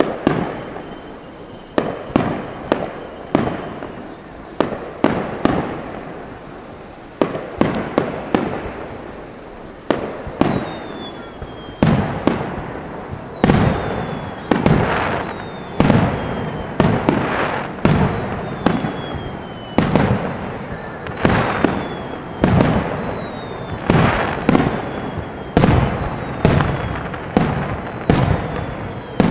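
Aerial fireworks shells bursting one after another in a rapid barrage, each a sudden boom that fades off. From about ten seconds in, short falling whistles sound over the bursts and the barrage grows denser.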